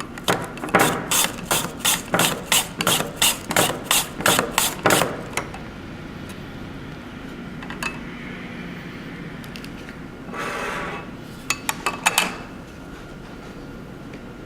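A potato being sliced on a handheld mandoline with a ceramic blade: a quick run of about fifteen even strokes, some three a second, over the first five seconds. After a lull comes a short scrape and a few light clicks near the end.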